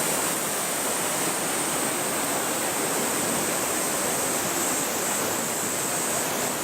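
Steady rush of mountain-stream water.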